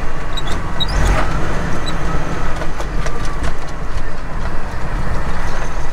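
Freightliner Classic semi truck's diesel engine running under way, heard from inside the cab as a steady low rumble with road noise, a faint whine and a few light rattles, one stronger clunk about a second in.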